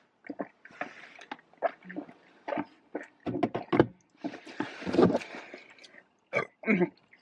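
Close-up eating sounds: chewing and wet mouth noises in short irregular clicks and smacks, with a longer noisy burst about four and a half seconds in.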